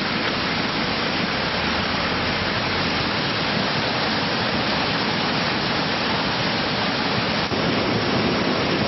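A river in monsoon flood rushing past: a steady, loud, unbroken rush of torrential water.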